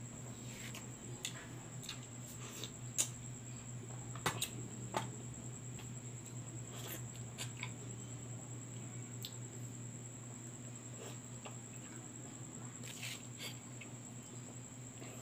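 Wet lip smacks and sucking clicks of a man eating mango flesh straight off the skin, coming at irregular intervals over a steady background hum.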